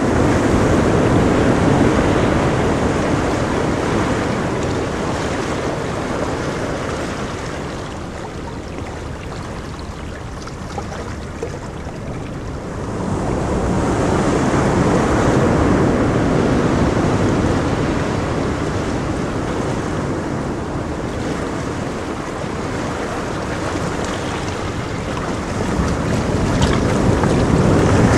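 Waves washing onto a beach with wind buffeting the microphone: a steady rush that slowly swells and eases, fuller at the start, around the middle and near the end.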